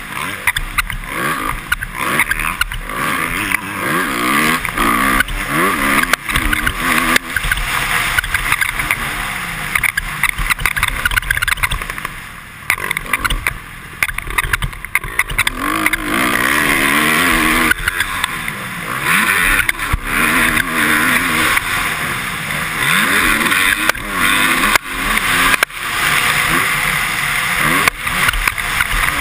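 2013 Honda CRF250R's single-cylinder four-stroke engine revving up and down repeatedly through the gears, heard from a helmet-mounted camera. The helmet visor squeaks over the bumps.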